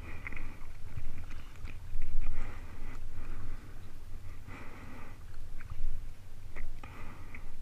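Kayak paddle blades dipping and splashing, about one stroke every two seconds, with water dripping off the blade, over steady low wind noise on the microphone.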